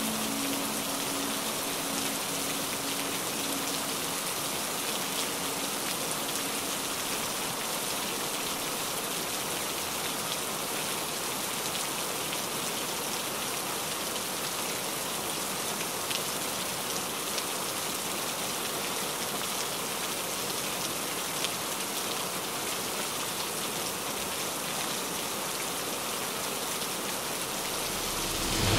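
Heavy rain falling steadily, an even hiss of rain with the patter of scattered drops.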